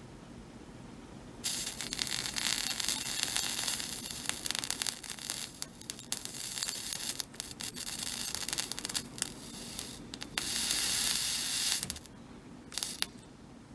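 Liquid flux sizzling and crackling as it boils off under a hot chisel-tip soldering iron dragged along the SD card socket's pins. It starts about a second and a half in, is loudest just before it stops about twelve seconds in.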